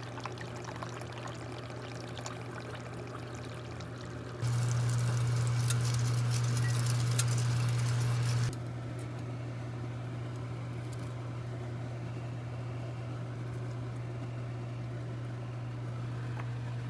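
Liquid being poured and splashing, in edited segments that change loudness abruptly about four and eight seconds in, over a steady low hum.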